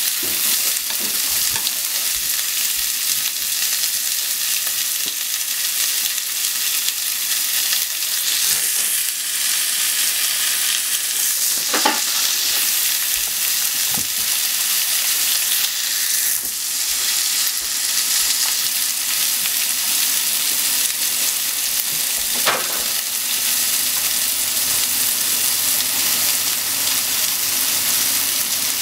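Sliced onions sizzling as they stir-fry in a nonstick frying pan, stirred with wooden chopsticks, with a steady frying hiss and a few sharp knocks against the pan.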